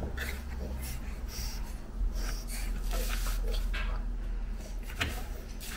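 Pug puppies snorting and breathing noisily through their short noses as they wrestle and mouth a plush toy lying down, with soft rustling of fur and fabric and a short knock about five seconds in.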